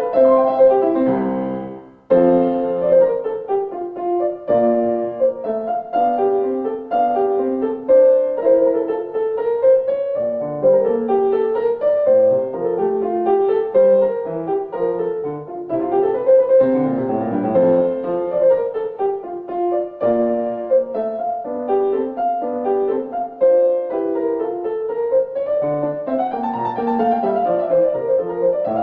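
Solo piano music in a classical style, a steady stream of melody and chords, with a brief fade about two seconds in before a new passage starts.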